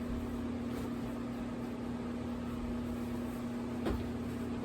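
Electric fan running with a steady hum and whir, one faint knock near the end.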